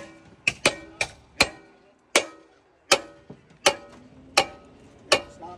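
A Halligan bar's fork being driven into a door frame with a striking tool: about ten hard metal-on-metal blows, each with a short bright ring, coming irregularly about half a second to a second apart. This is the bar being set in the jamb before the door is forced.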